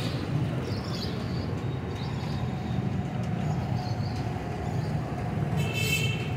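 Steady low rumble of busy market and street background noise, with a brief shrill high-pitched sound near the end.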